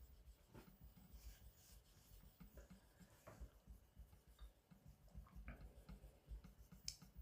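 Very faint, scattered light scrapes and ticks of a carbon-steel knife bevel being worked on an Aizu Japanese natural sharpening stone.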